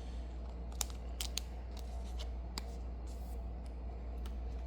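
A few light, sharp clicks and rustles from Yu-Gi-Oh trading cards and their plastic packaging being handled, over a steady low hum.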